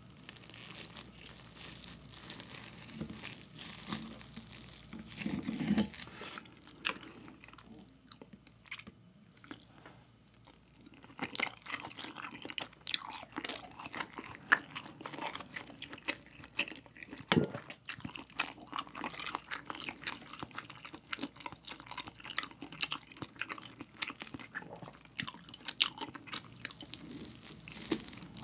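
Close-miked eating sounds: wet chewing of mouthfuls of an egg-and-cheese-topped rice dish, with a knife and fork clicking and scraping against the plate as it is cut. A quieter stretch comes about a third of the way through, then the clicking and chewing pick up again.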